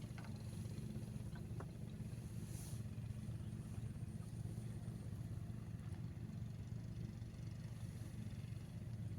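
A motor running steadily, giving a low, even engine hum.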